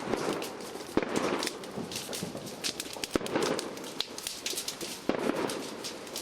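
Bonfire burning, crackling and popping steadily, with louder sharp cracks about a second in and about three seconds in.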